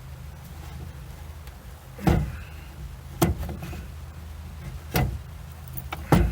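Case splitter being turned by hand, pushing the crankshaft out of a Husqvarna 372XP chainsaw crankcase. It gives four sharp cracks about a second or so apart as the tight crank gives way in jerks, over a steady low hum.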